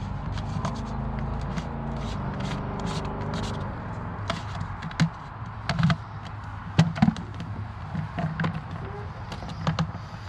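A low, steady engine hum fades out over the first four seconds. After it come scattered knocks and clatter, a few of them sharp and loud, like objects being handled and set down.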